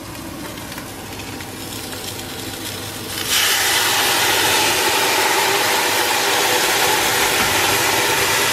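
Crab pieces frying in a hot steel stockpot with chili, garlic and ginger, the sizzle slowly growing; about three seconds in, sauce poured onto the hot crabs sets off a sudden loud, steady hissing sizzle with steam.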